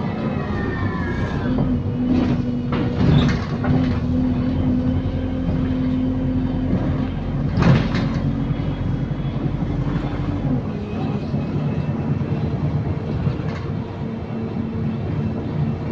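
Inside an Optare Solo SR bus with a Voith automatic gearbox under way: a steady low drivetrain drone with a held tone, broken by sharp rattles and knocks from the body and fittings about two, three, four and eight seconds in. The drone's main tone drops away about ten and a half seconds in. The bus is known to its rider as a rattlebox.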